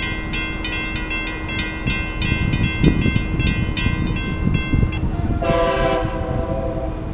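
Railroad crossing bell ringing about three strikes a second as the gates rise, stopping about two-thirds of the way through. About half a second later a multi-tone train horn gives one blast of about a second, over a low rumble.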